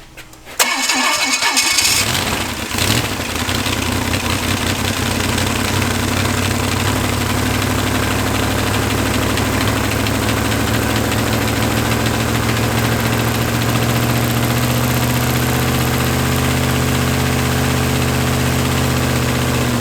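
A 283 small-block Chevy V8 with one cylinder head removed, so that only four cylinders can fire, turns over with a sudden burst about half a second in and then runs steadily and loudly.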